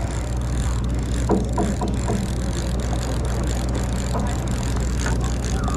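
Fishing boat's engine idling with a steady low hum, with faint voices of anglers on deck about a second in and near the end.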